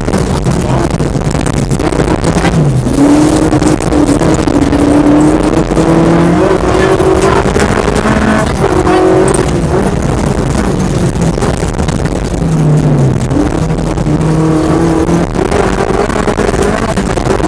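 Peugeot 205 rally kit car engine heard from inside the cabin, driven hard: the revs climb and drop sharply several times as the gears are changed, over constant road and gravel rumble.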